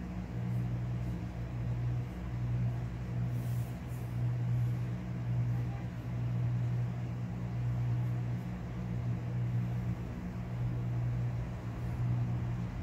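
A steady low mechanical hum that swells and eases slightly every second or two.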